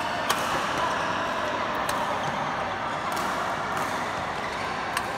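Badminton rally: four sharp racket-on-shuttlecock hits, one to two seconds apart, over the steady din of a large sports hall.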